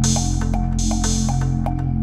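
Background electronic music with a steady beat of about four ticks a second over held low notes.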